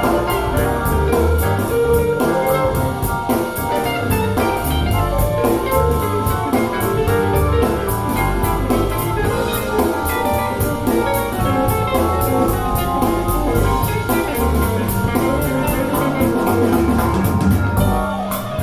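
Instrumental music with a drum kit keeping a steady beat, played back through a pair of Bowers & Wilkins 707 S2 bookshelf speakers.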